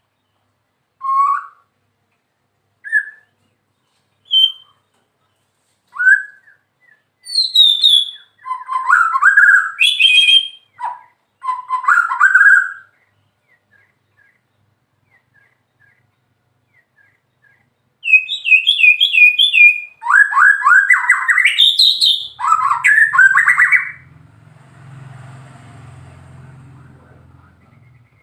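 White-rumped shama singing: a few single whistled notes spaced a second or two apart, then rich, fast-changing phrases. After a pause of several seconds comes a loud, rapid run of repeated notes and trills, followed near the end by a faint low hum and hiss.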